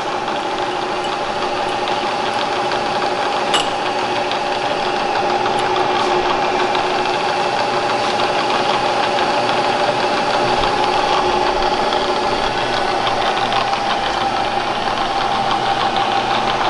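Bridgeport Series I vertical mill's 2-horsepower variable-speed spindle head running steadily, a mechanical hum with a steady whine over it. A single sharp click about three and a half seconds in.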